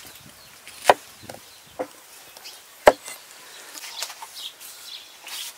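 Curved knife chopping a lime on a wooden cutting board: three sharp strikes about a second apart, the middle one lighter.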